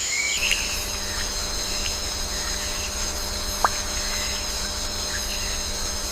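Tropical forest ambience: a steady high-pitched insect drone over a low rumble, with a few faint chirps and one sharp click a little past the middle.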